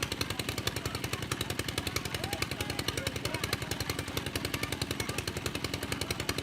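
Engine of an irrigation pump used to drain a fish pond, running steadily with a rapid, even thudding of roughly a dozen beats a second.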